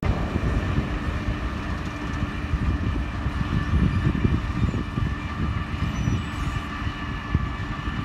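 Komatsu crawler bulldozer's diesel engine running steadily with the clank of its steel tracks, a low rumble under a steady whine.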